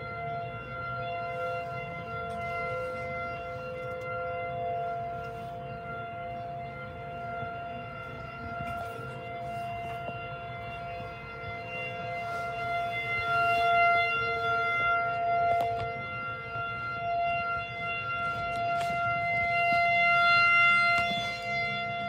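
Outdoor tornado warning siren sounding a steady, held tone for a tornado warning, heard through a window. It swells louder and fades back, loudest about two-thirds of the way in and again near the end.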